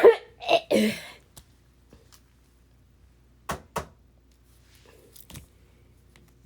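A person coughing: three harsh coughs close together, then two short coughs a couple of seconds later, a smoker's coughing fit.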